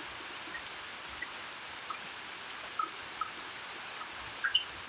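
Steady hiss of heavy rain falling on trees and ground, with a few short high-pitched sounds over it, the sharpest about four and a half seconds in.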